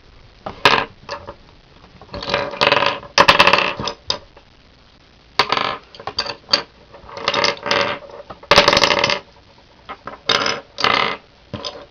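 Loose plastic Rubik's Cube pieces clattering and clicking against each other as they are sorted through by hand, in irregular bursts.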